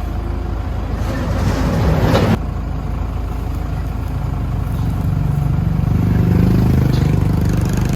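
Motor vehicle engine running with a steady low rumble; a loud noisy rush about a second in stops sharply, and the engine then revs up from about halfway through.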